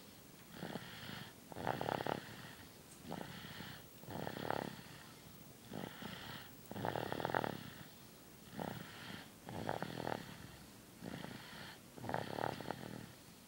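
Snoring in sleep: a snore about every second or so, some louder and longer than others.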